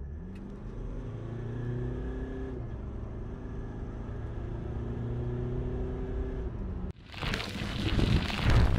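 Mitsubishi L200 Triton's remapped turbodiesel engine accelerating under full throttle, heard from inside the cab: the engine note climbs, dips at an automatic upshift about two and a half seconds in, then climbs again. Just before seven seconds in it cuts off abruptly and a loud music sting with booms begins.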